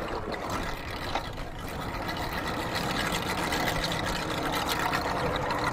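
Mercury 150 outboard on a bass boat idling steadily at the dock, with wind buffeting the microphone.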